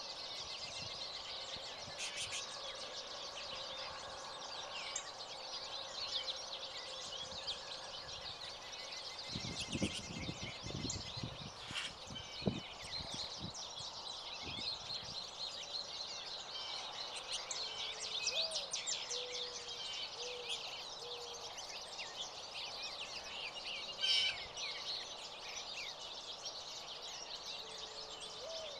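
Small birds chirping and twittering steadily in a dense chorus, with a few short low cooing notes in the second half. A few low thuds come around ten seconds in.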